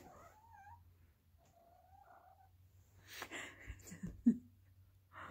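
Tabby kitten giving two drawn-out, wavering cries, about half a second in and again around two seconds in, annoyed at having the shirt pulled from under it. Fabric rustling follows, with a single thump a little after four seconds.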